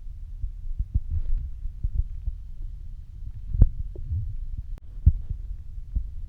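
A hungry, empty stomach growling and gurgling: a low continuous rumble with scattered short gurgles and two sharper pops about three and a half and five seconds in. The growling is hunger after almost a day without food.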